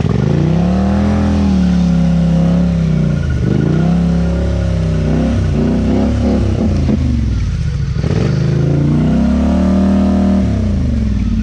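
ATV engine revving hard under load, the revs surging and falling back about three times, with a brief lull about two-thirds of the way through.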